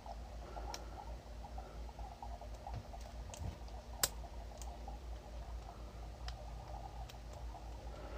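Faint scraping and light ticking of a lock pick raking and probing the pins of a Paclock 200A padlock under tension, with one sharper click about four seconds in, over a low steady hum.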